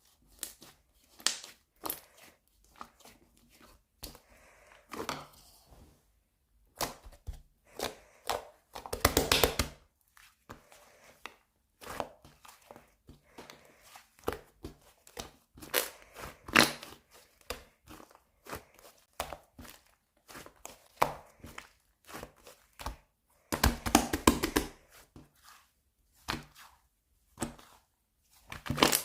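Soft purple slime clay being squeezed, pressed and stretched by hand, making irregular sticky clicks and crackles. The crackling comes thicker and louder about nine seconds in and again around twenty-four seconds.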